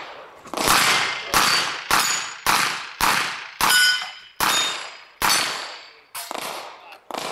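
An eight-shot revolver fired in a fast, even string of about eight shots, roughly one every 0.6 seconds, at steel targets, with the struck steel ringing after several hits. A few quieter shots follow near the end.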